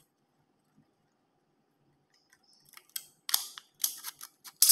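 Thin aluminum soda-can sheet crinkling and crackling in the hands as it is folded, a few sharp crinkles at a time. It starts about two seconds in after near silence and is loudest near the end.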